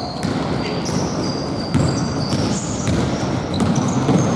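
Basketball being bounced in an indoor gym during play, with short high squeaks of sneakers on the court and the hall's echo.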